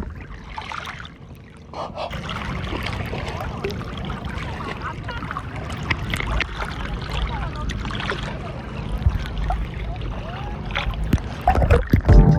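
Water sloshing and splashing around a small boat, with faint voices in the background.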